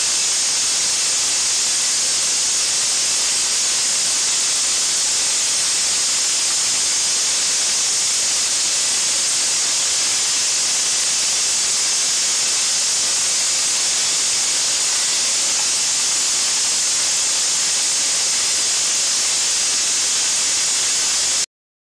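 Vibratory bowl feeder running: a steady, even hiss with no rhythm or separate knocks.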